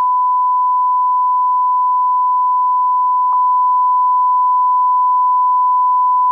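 Steady censor bleep: a single unbroken sine-wave tone standing in for a song that is blanked out for copyright, with a tiny click about halfway through.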